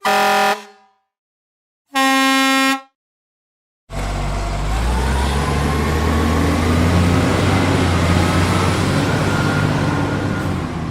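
Two separate truck horn blasts: a short one, then about two seconds later a slightly longer, lower-pitched one. About four seconds in, a truck engine sound cuts in loud and keeps running with a deep, steady rumble and a faint whine that slowly rises in pitch.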